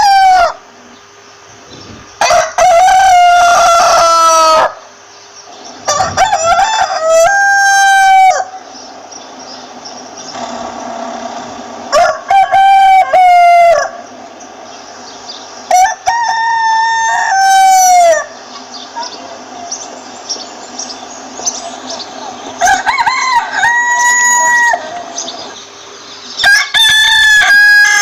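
Rooster crowing cock-a-doodle-doo about six times, each crow lasting roughly two seconds with a held note that falls away at the end, with hens clucking faintly between crows.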